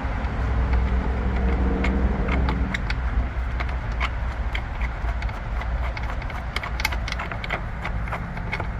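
Scattered small metallic clicks and clinks of screws and pump parts being handled and fitted, over a steady low rumble. A steady hum sounds for about the first three seconds.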